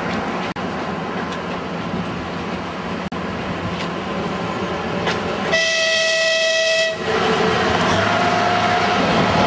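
Narrow-gauge diesel locomotive hauling passenger cars, running toward the listener, with one horn blast of about a second and a half a little past halfway through. The engine and wheels grow louder near the end as the train comes close.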